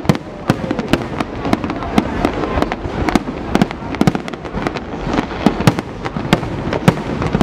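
Aerial firework shells bursting in rapid, irregular succession, several sharp bangs a second over a continuous crackling rumble.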